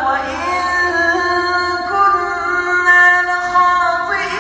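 A man's voice chanting Quran recitation in a high register, drawing out long melodic notes that are held and bent slowly in pitch, with brief breaks between phrases.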